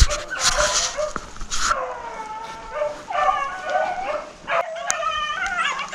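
A pack of rabbit hounds giving voice on a rabbit's trail: several dogs bawling and yipping over one another, louder and busier in the second half. A burst of rustling noise comes near the start.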